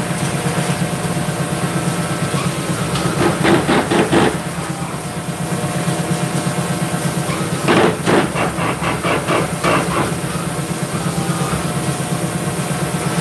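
Hydraulic shop press running with a steady hum from its pump while pressing a leaf-spring bushing. Two spells of rapid ticking, about four to five a second, come about three seconds in and again about eight seconds in.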